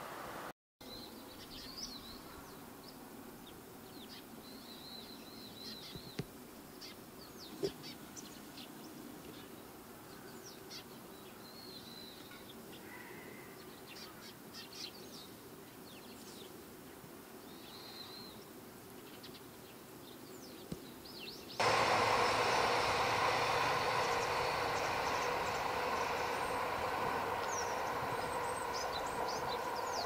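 A flock of tree sparrows chirping: many short, high chirps and a few wavering calls over a faint background hiss. About two-thirds of the way through, a much louder steady rushing noise starts abruptly.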